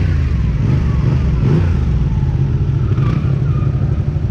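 Benelli 302R's parallel-twin engine running steadily, heard from on board the motorcycle.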